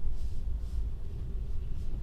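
Low, steady rumble of an electric car's tyres rolling slowly over snow, heard inside the cabin, with faint swishes now and then.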